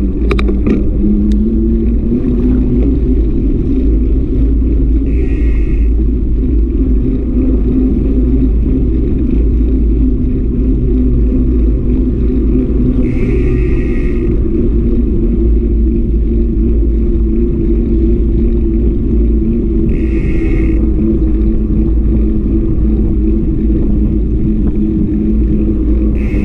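Wind buffeting the microphone of a mountain bike's handlebar-mounted action camera while riding on asphalt, over a steady hum of the tyres rolling on the road. A short higher-pitched buzz cuts in four times.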